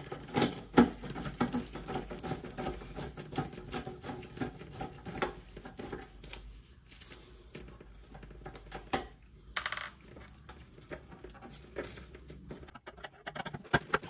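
Gloved hands handling a refrigerator's condenser fan motor assembly with the fan unplugged: an irregular run of small clicks, rattles and knocks of plastic and wire being moved, with a louder click about a second in.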